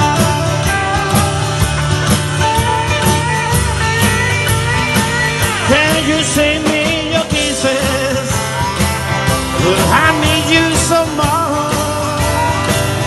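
Live rockabilly band playing an instrumental passage with no singing: strummed acoustic guitar, electric guitar and drums, with bending, wavering lead lines. A harmonica is played into the vocal mic near the end.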